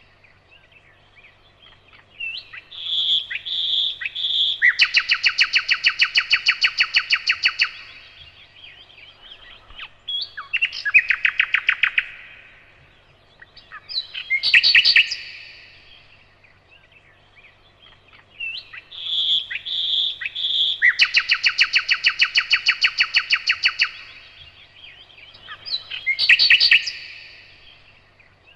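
Nightingale singing in separate phrases with pauses between them: a few drawn-out whistled notes lead into a fast, loud run of repeated notes lasting about three seconds, followed by shorter phrases. The same sequence comes round again about halfway through.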